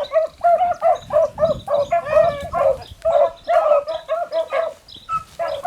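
A pack of beagles baying on a rabbit's track: rapid, overlapping yelps from several hounds, several a second, with a brief lull near the end.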